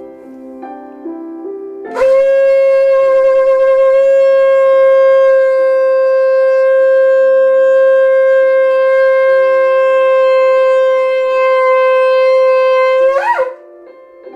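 A shofar blown in one long, steady blast of about eleven seconds. It starts about two seconds in and breaks upward in pitch just as it ends, near the end. Soft background instrumental notes play underneath.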